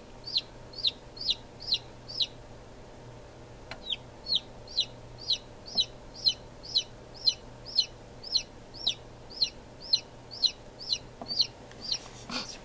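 Newly hatched chick peeping: a steady run of short, high-pitched peeps, about two a second, broken by a pause of about two seconds near the start.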